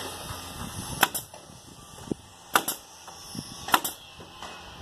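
Pneumatic nail gun firing three times, about a second and a half apart, each shot a sharp double crack as it drives a nail into the fence boards.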